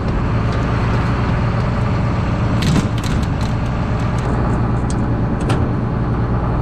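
John Deere combine's diesel engine running steadily, with a few sharp clicks and knocks about three seconds in and again near the end.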